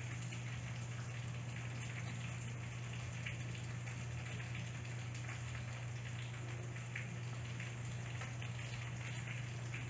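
Steady crackly hiss with a low hum underneath, and a few faint ticks scattered through it.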